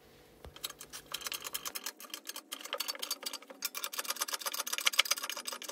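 Rapid, irregular ticking and clicking as the press forces a sheet-aluminium blank into a dome-cap die. The clicks start about half a second in and come thicker from about two seconds in.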